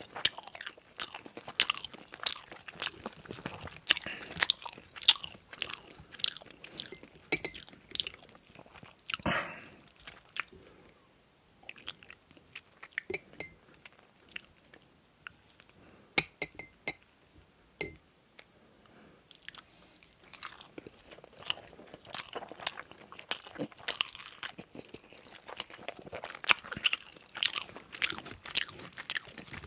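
A person chewing and biting food close to the microphone, a busy run of sharp wet clicks. It thins out to a few quiet clicks for several seconds in the middle, then picks up again.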